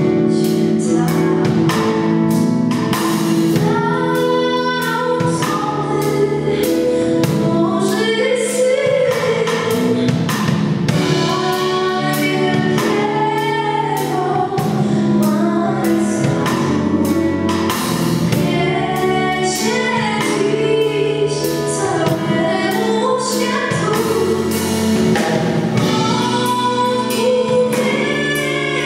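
A female vocalist singing a Christmas carol into a microphone, backed by a band with a drum kit under held chords.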